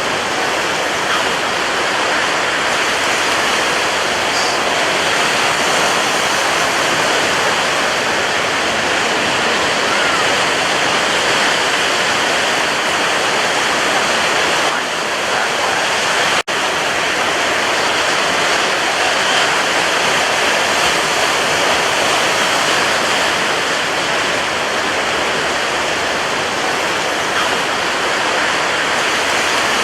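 Sea waves and surf making a steady, dense rush of noise with no distinct wave crashes standing out. It cuts out for an instant about halfway through.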